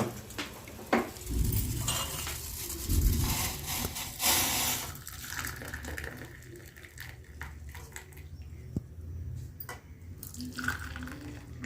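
Pan and metal utensils clinking while the boiled kadha (herbal decoction) is poured out, with the splash and drip of liquid.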